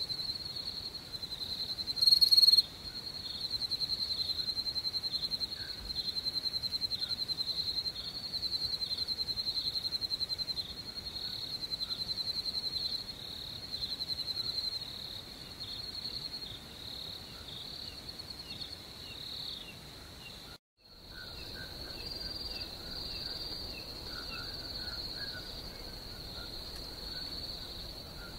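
Crickets chirping in a steady, fast-pulsing chorus, with one brief louder burst about two seconds in. The sound cuts out to silence for a moment about 21 seconds in, then the chirping carries on with fainter, lower chirps mixed in.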